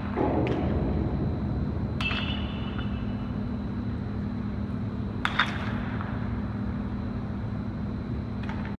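Baseball bats hitting balls: a few sharp cracks, the clearest about two seconds in and a close pair past the middle, some with a short ringing tone, over a steady low hum.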